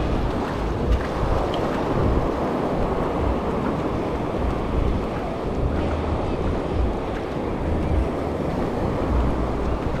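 Ocean surf breaking and washing along a sandy shore, a steady rushing, with strong wind buffeting the microphone in low rumbling gusts.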